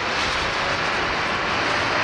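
Jet airliner engines running, a steady loud rushing noise with no breaks.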